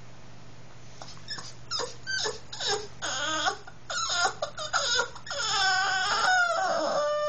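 Boston terrier whining and yowling: a run of short, wavering, pitched calls starts about a second in, and the calls grow longer into a drawn-out call near the end. This is the excited whining of a dog eager to go out.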